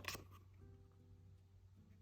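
Near silence with faint background music and a low steady hum; a short paper rustle from a photo-book page being handled right at the start.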